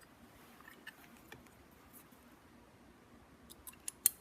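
Faint small clicks and taps of metal parts being handled as a replacement blade is set into a leather skiving tool, with one sharper click near the end.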